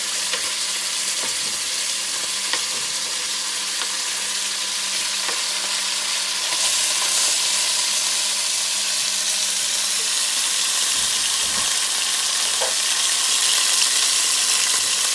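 Cubed beef sizzling as it browns in a hot stainless steel pot, a steady frying hiss that grows a little louder about six seconds in.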